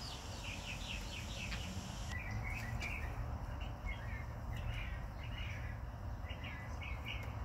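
Small birds chirping over and over, short quick chirps, over a steady low background rumble; a faint high hiss stops about two seconds in.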